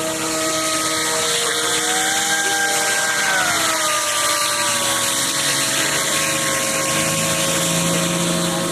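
Model hovercraft's ducted fan running with a steady whine over a hiss. The pitch rises about a second in, then drops lower at around three and a half seconds as the throttle is eased.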